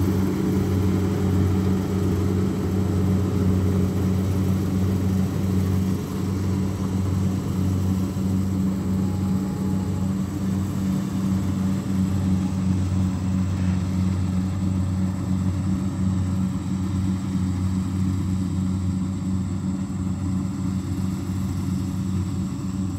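Kubota DC-60 rice combine harvester's diesel engine running at a steady drone as the machine cuts through the rice.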